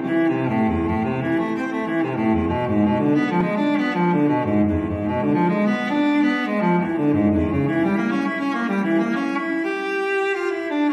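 Background music of slow, sustained low string notes, with the pitch changing every second or so.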